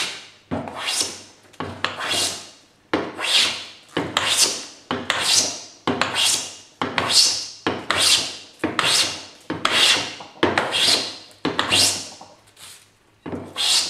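Metal hand plane taking heavy shavings across the face of a wooden board in repeated strokes, about one a second. Each stroke is a hiss of the blade cutting wood that starts sharply and fades away.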